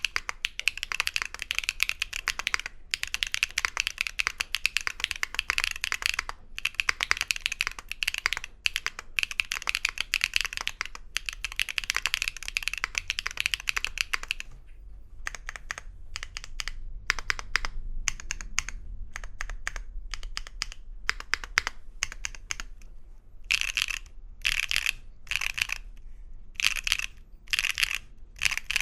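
Mechanical keyboard fitted with Wuque Studio BigLucky tactile switches (polycarbonate housings, factory lubed) on an aluminum plate, being typed on. Fast, continuous typing gives way about halfway through to slower, separate keystrokes, then a few short flurries near the end.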